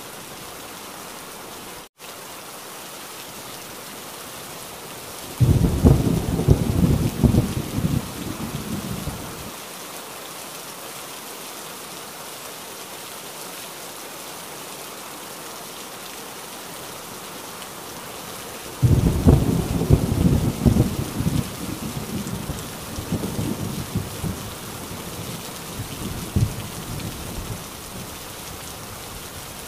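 Steady heavy rain with two rolls of thunder. The first breaks about five seconds in and rumbles for about four seconds. The second breaks about nineteen seconds in and rolls on with scattered cracks for several seconds before dying away. The sound drops out for a split second about two seconds in.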